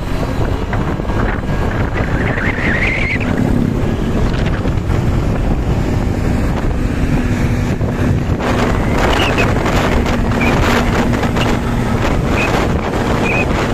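Heavy wind buffeting the microphone over the rumble of a moving vehicle, with a faint low engine tone that comes and goes and a few short high chirps near the end.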